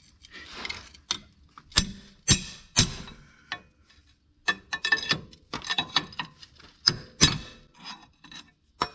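Metal tools and car parts clinking and knocking, with a short scrape about half a second in, during work to free a car's CV axle.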